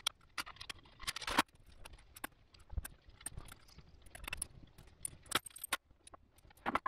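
Metal hand tools clinking and clicking as a socket extension and ratchet are handled, in sharp irregular knocks with a louder rattle about a second in.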